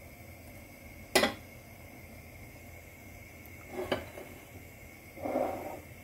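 Spatula and frying pan clatter: a sharp click about a second in, a softer knock near four seconds, and a short rustle just after five seconds.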